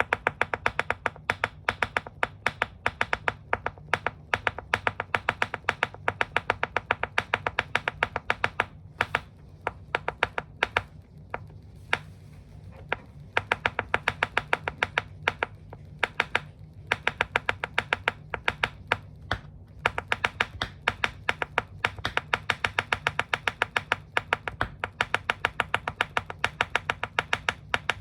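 Tap shoes clicking on a hard floor in quick, even runs of taps, several a second, thinning to a few scattered taps for a couple of seconds midway, over a low steady hum.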